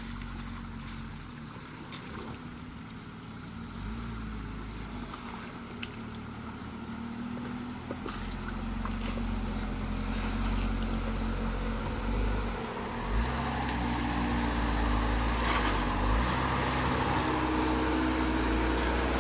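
Truck engine running at low revs as the vehicle crawls along the trail, with a few short knocks and clunks from the truck. The engine note rises and grows louder about two-thirds of the way through.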